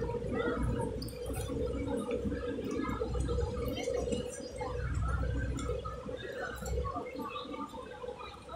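Outdoor street ambience on a wet, busy pedestrian street: scattered faint voices of passers-by over a steady hum, with a low rumble that drops away near the end.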